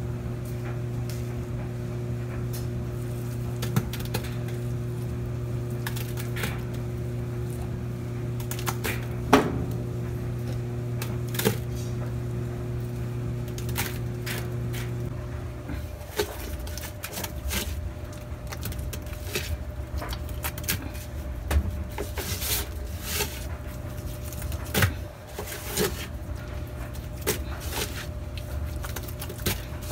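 Top-loading washing machine humming steadily as it fills with water; the hum thins out about halfway through. Scattered taps and soft plops come as thick bleach paste is tipped from a plastic cup into the drum.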